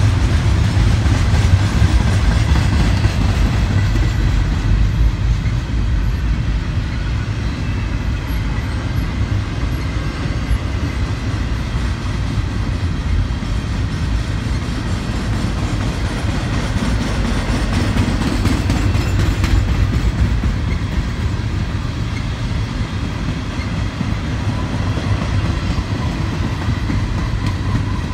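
Double-stack intermodal container train's well cars rolling past, their wheels rumbling steadily on the rails.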